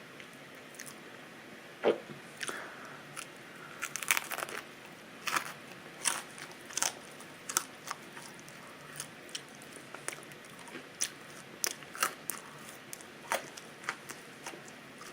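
Open-mouthed chewing of burnt pizza: irregular crunches and mouth clicks, about one or two a second, with a couple of louder bites early on the crisp crust.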